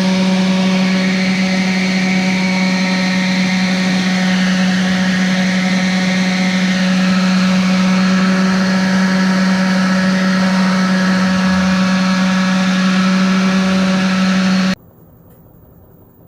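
An electric power tool's motor running at a steady speed: a loud, even hum with a fixed pitch, which cuts off abruptly near the end.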